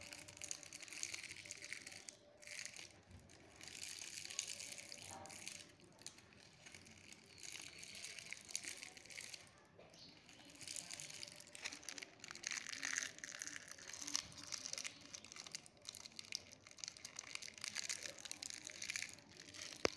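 Rustling and crackling of wet water hyacinth plants and a mesh net being handled in shallow pond water, coming in uneven bursts.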